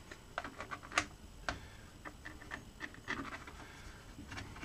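Irregular small clicks and crackles of a plastic screen-protector film being handled and pressed at the edge of a metal detector control box's display, with one sharper click about a second in.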